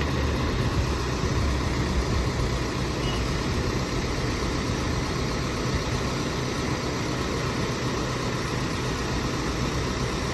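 Truck engine running steadily at idle, driving the hydraulics of the truck-mounted crane while it lifts a load.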